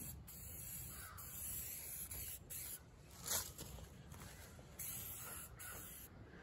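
Aerosol can of black spray paint hissing in several short bursts as paint is sprayed onto the boat hull. A crow caws in the background, loudest about three seconds in.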